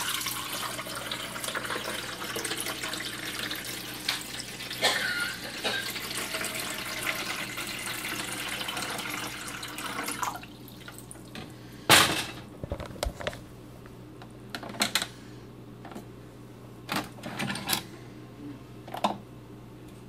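Keurig B140 coffee maker brewing, a steady stream of hot coffee running into a cup; the flow stops about ten seconds in. A sharp knock follows about two seconds later, then a few lighter clicks.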